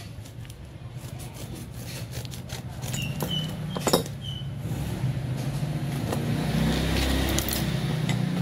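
A motor vehicle engine running steadily and growing louder over the second half, under rustling and clicks from a cardboard parcel and paper being handled, with one sharp click about four seconds in.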